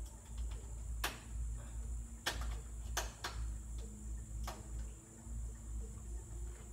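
About five short, sharp clicks and clacks, a second or so apart, from metal jumper-cable clamps being handled and clamped at a tractor battery.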